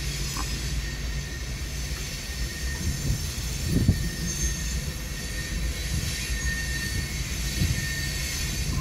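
Freight train of coal cars rolling past, with a steady rumble and clatter of wheels on rail and a heavier clank about four seconds in. A faint high squeal runs over it.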